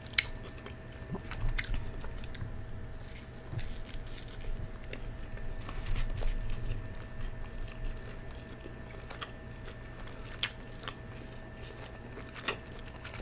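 Close-miked chewing and biting of food, with a few sharp wet smacking clicks scattered through it.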